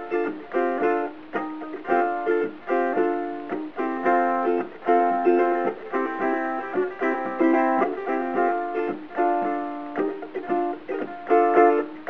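Covered Bridge redwood and myrtle tenor ukulele strummed in a classic rock style: chords struck in a steady, driving rhythm, each strum ringing briefly before the next.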